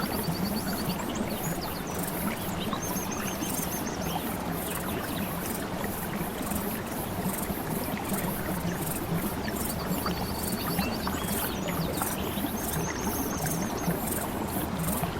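Steadily flowing stream water, with a bird giving short, rapid high trills four times.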